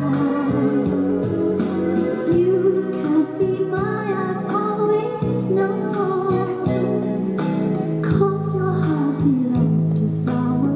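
A Thai song with a singer and instrumental backing playing back from a portable cassette tape player (PYE Companion 1000), with little deep bass.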